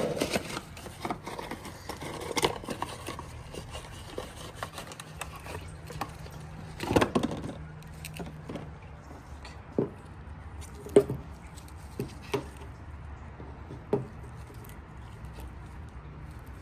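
Scattered light clicks and knocks of small parts being handled, a handful of separate taps a few seconds apart, the loudest about seven seconds in.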